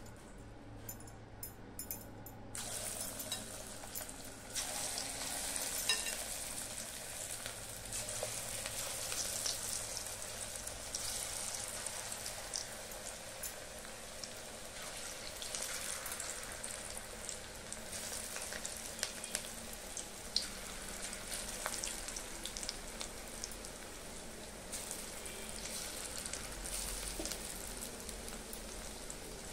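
Moong dal pakoda batter deep-frying in hot oil in a kadai: a steady sizzle that starts suddenly about two and a half seconds in as the batter goes into the oil, with louder flares now and then.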